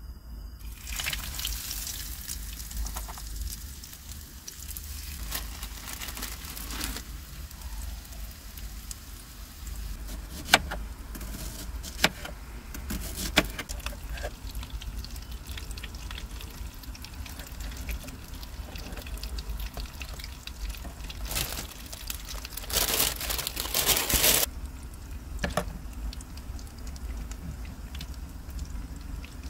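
Food preparation on a plastic cutting board: a knife slicing and tapping, with a few sharp clicks and a louder spell of scraping and rustling near the end.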